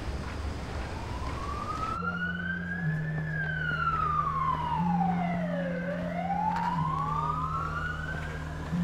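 A siren wailing slowly: its pitch rises, falls to a low point about six seconds in, then rises again. Under it, a low droning note steps between two pitches every couple of seconds. A low rumble cuts off about two seconds in, when the siren and drone begin.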